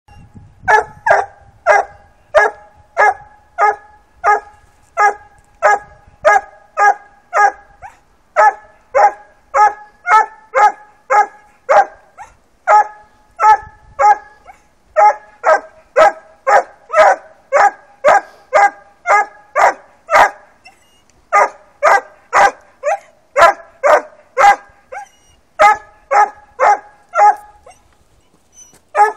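Four-month-old black and tan coonhound pup barking treed at a caged raccoon: a steady run of short, pitched chop barks, about two a second, with a few brief breaks.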